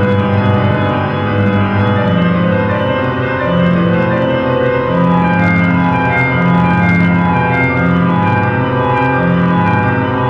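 Slow, sustained organ-like keyboard music, with long held chords over a low line whose notes change about once a second.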